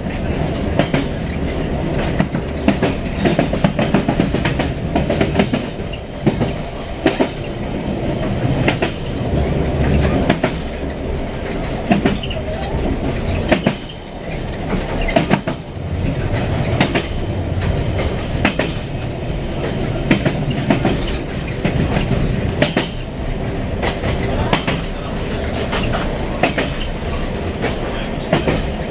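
Siemens Desiro diesel multiple unit heard from inside the passenger cabin at running speed: a steady rumble from the bogies, with the wheels clacking irregularly over rail joints.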